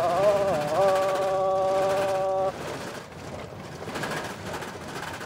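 A man's voice holding one long sung note with a wavering pitch; the note dips and bends back about half a second in, then holds and breaks off about two and a half seconds in. After that comes a steady rumble of tyres on a gravel road, heard inside the cab.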